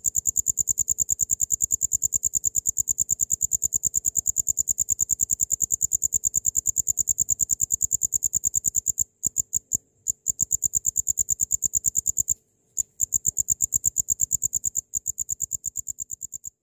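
Cricket chirping: a high, fast, evenly pulsed trill of about eight pulses a second. It breaks off briefly twice in the middle and fades away at the end.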